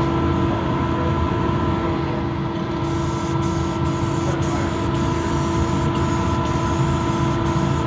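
Aerosol spray paint can hissing in a run of short sprays, starting about three seconds in, over a steady mechanical hum.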